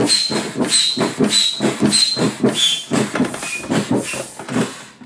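Air pump inflating an inflatable boat: regular pump strokes about two a second, each a rush of air with a short high squeak, stopping shortly before the end.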